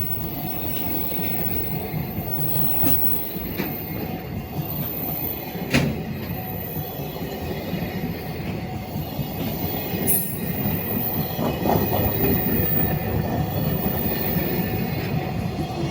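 Freight train wagons rolling past steadily on jointed track, with occasional sharp wheel clacks, the loudest about six seconds in.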